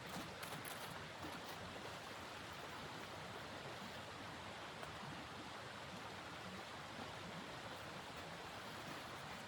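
Steady rushing noise of blizzard wind, with a few faint ticks in the first second.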